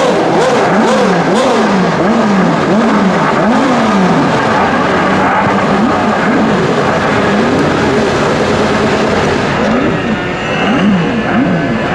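Many race and safety car engines running at once on a starting grid, repeatedly blipped so the revs rise and fall about once or twice a second, with fewer blips near the end.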